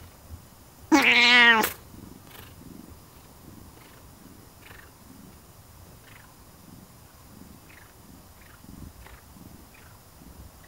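A cat gives one loud, slightly wavering meow about a second in, lasting under a second. Soft purring follows.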